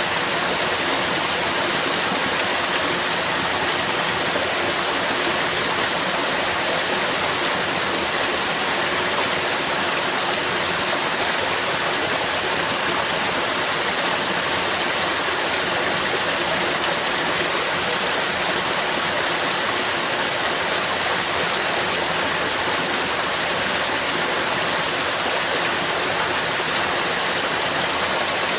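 Steady stream of water rushing through a sewer, a continuous even splashing flow with no breaks.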